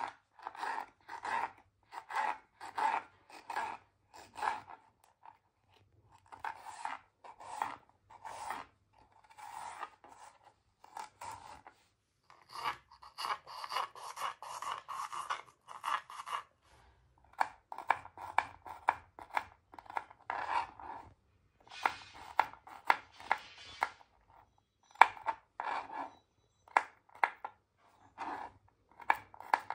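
Kitchen knife chopping vegetables (capsicum, carrot, onion, garlic) on a plastic cutting board: sharp repeated cutting strokes, about two a second at first, with faster runs of quick chops in the middle and short pauses between runs.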